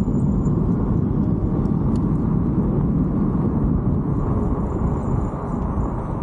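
Steady wind noise on the microphone and tyre rumble while riding along a park road, a dense low rumble that stays level throughout.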